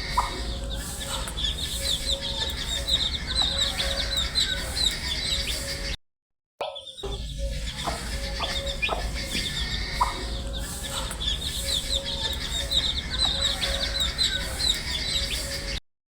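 A brood of baby chicks peeping continuously, many quick high chirps overlapping, over a low steady hum. The sound cuts out for about half a second about six seconds in, and again just before the end.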